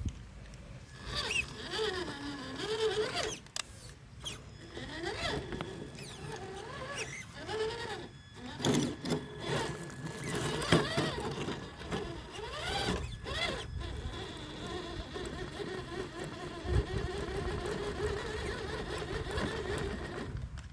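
Traxxas TRX-4 RC crawler's electric motor and geared drivetrain whining, the pitch rising and falling again and again with the throttle as it crawls, then holding a steadier whine in the second half.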